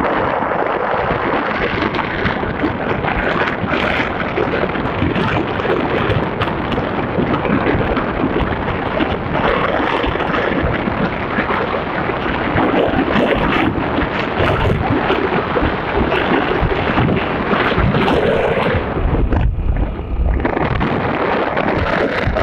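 Loud, steady wind noise buffeting a phone's microphone, a continuous rumble and hiss.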